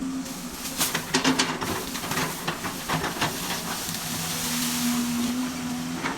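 Excavator running with a steady hum and hiss, and a quick run of clanks and knocks starting about a second in and lasting a couple of seconds; one more knock near the end.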